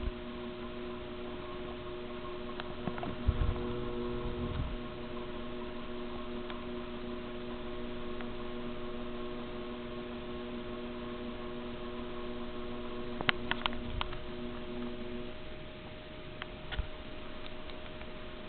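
Ceiling fan motor running on a variable speed wall control, giving a steady electrical hum of several tones. A few sharp clicks come about two-thirds of the way in. Shortly after, most of the lower hum tones drop out while one higher tone carries on.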